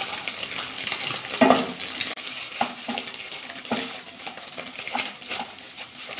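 Wooden spatula scraping and knocking against a nonstick kadai at an irregular pace as scrambled egg pieces are stirred and broken up, over a light sizzle of the eggs frying in oil.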